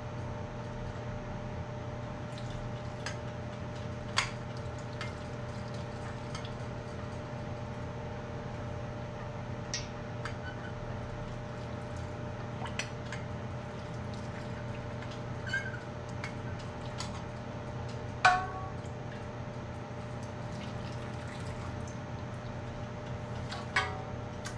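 Liquid poured from a glass measuring cup into jars packed with peaches, filling them for canning, with a few sharp clinks of glass, the loudest about 18 seconds in, over a steady background hum.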